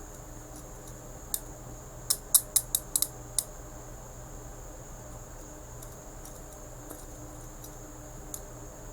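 Steel handcuffs ratcheting shut on the wrists: a quick run of sharp metallic clicks between about one and three and a half seconds in, with a few fainter ticks later.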